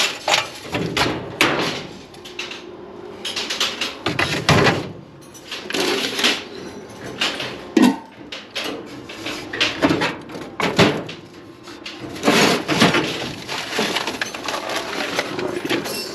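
Irregular knocks and clatter of tools and parts being handled and moved about.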